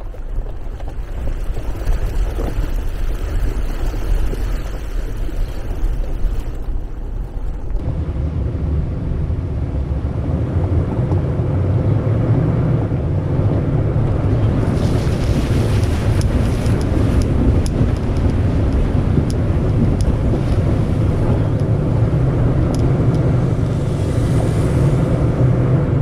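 A car driving over a rough, rocky gravel road with a shallow stream ford: steady engine and road noise that grows heavier about eight seconds in, with scattered sharp clicks from about halfway through.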